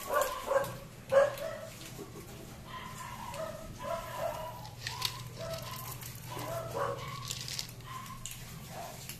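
Several domestic cats meowing in short, repeated calls that overlap one another, the loudest about a second in.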